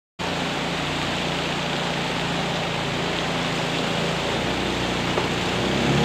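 Shallow river rapids rushing and churning around wooden boats, with a steady low engine hum from the boats underneath.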